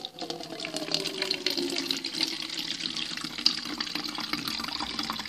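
Water being poured into a plastic bottle: a steady splashing trickle as the bottle fills.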